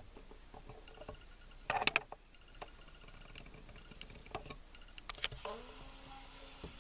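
Handling noise from a handheld camera being moved: scattered clicks and rustles, with a cluster of sharp clicks about two seconds in and more a little after five seconds.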